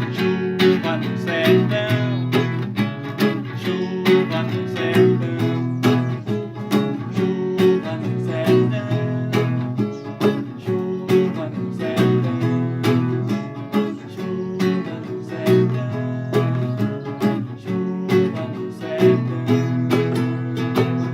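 Acoustic guitar strumming a steady, rhythmic chord accompaniment.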